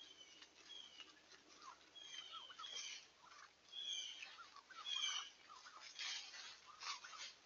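Wild turkeys foraging in dry leaf litter: short high peeps that slide down in pitch, repeated every second or so, with brief rustles of leaves being scratched and stepped on.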